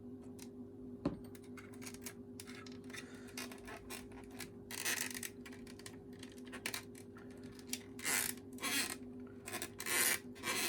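Hands working small plastic parts and wiring inside a vacuum cleaner handle: a sharp click about a second in, then irregular scraping, rattling and clicking as the wires are freed from the wire connector.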